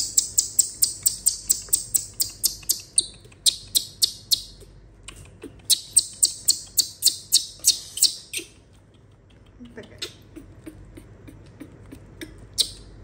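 Baby monkey crying in a rapid string of shrill squeaks, about five a second, in two bouts that stop about two-thirds of the way through, with a few single squeaks after.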